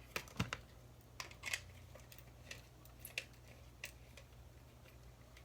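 Scattered light clicks and taps of plastic ring-light stand and holder parts being handled and fitted together, over a steady low hum.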